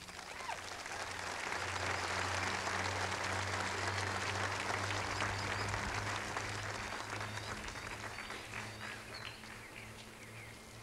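Crowd applauding in response to an announcement. The clapping swells over the first couple of seconds, holds, then dies away toward the end, over a low steady hum.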